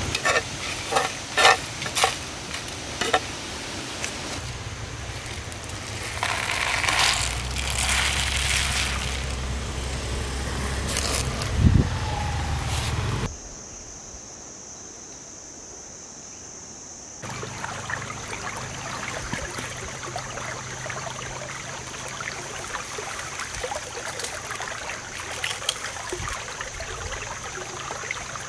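Dry coriander seeds and dried red chillies scraped and stirred with a wooden stick in a clay pot over a crackling wood fire, with sharp clicks and a single louder knock. After a short, much quieter stretch with a steady high tone, a shallow stream flows steadily with light clicks over it.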